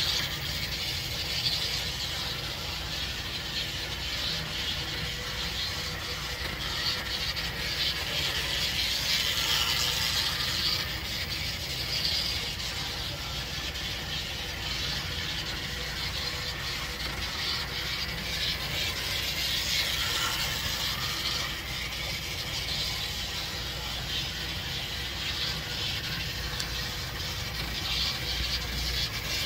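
Gem model diesel switcher running on the layout: the small electric motor buzzes and the wheels click over the rails, swelling and fading a little.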